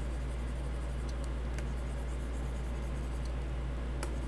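Faint scratching of a pen stylus on a drawing tablet, with a few light clicks, over a steady low electrical hum.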